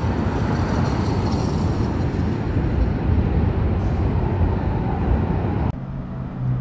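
Loud, steady road-traffic and vehicle noise, heavy in the low end. It cuts off abruptly near the end, giving way to a quieter steady low hum.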